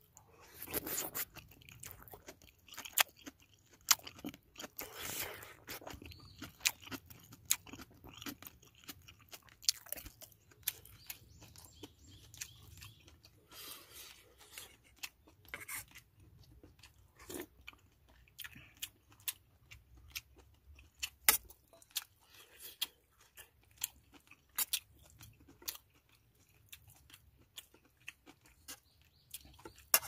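A person eating kimchi stew with pork and aged kimchi: close chewing and crunching, with irregular sharp clicks throughout.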